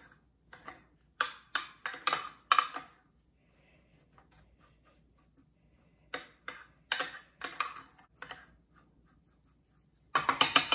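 Metal fork scraping and clinking against a glass baking dish while stirring breadcrumbs and grated Parmesan together. It comes in short strokes, with a pause in the middle and a quick run of clinks near the end.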